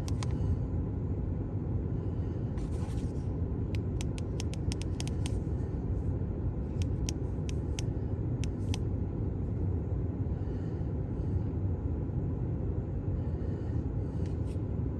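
A steady low rumble, with sharp clicks scattered through it that come in quick runs a few seconds in and again past the middle.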